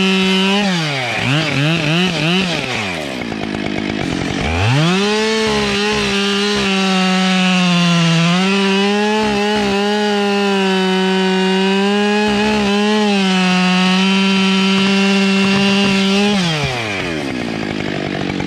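Husqvarna 572XPG two-stroke chainsaw: the throttle is blipped a few times, the engine drops back to idle, then it runs at full throttle for about twelve seconds, sawing through a thick beech log, before falling back to idle near the end.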